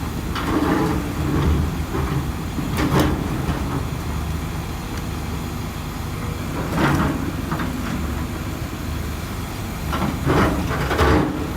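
Hydraulic excavator's diesel engine running steadily, with several clanks and scrapes of metal at irregular intervals.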